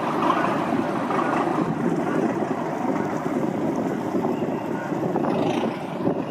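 Boat engine running steadily on the river.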